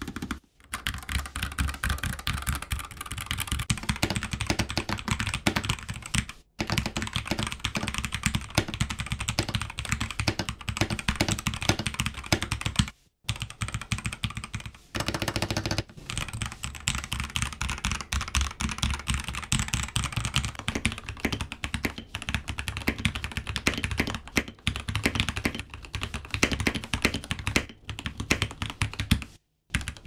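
Typing on mechanical keyboards in a sound test: dense key clacks first from a NuPhy Air75 low-profile keyboard, then from a Keydous NJ80, and near the end from a Keychron K8 Pro with pre-lubed Gateron G Pro switches. The typing stops briefly four times where one clip gives way to the next.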